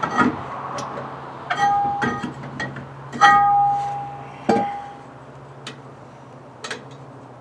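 Metal clinking during work on a car's rear drum brake. Sharp knocks set a piece of metal ringing with a clear tone twice, the second ring loud and lasting over a second before it is stopped suddenly. A low steady hum runs underneath.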